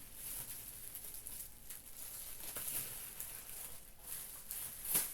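Rustling and crinkling of merchandise packaging being handled, with scattered light taps and one sharper click near the end.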